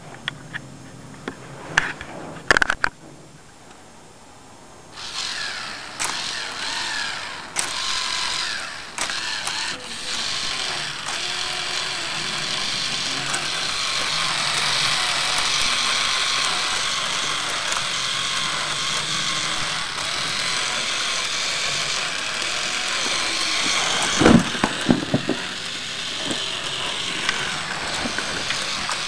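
K'NEX model V6 engine with a Roots-type supercharger running, its plastic gears, chains and moving parts giving a steady mechanical whirr and clatter that starts about five seconds in. There are a few sharp knocks near the end.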